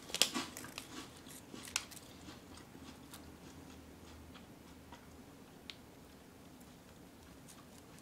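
Scattered soft crunches and crinkles from dry dagashi snacks and their plastic wrappers, dying away after about two seconds, then faint room tone with a low steady hum.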